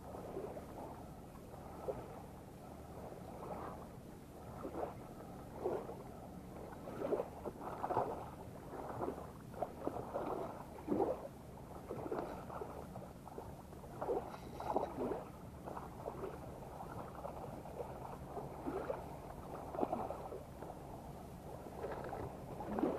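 Shallow seawater splashing and sloshing in short, irregular bursts around a wading angler's legs.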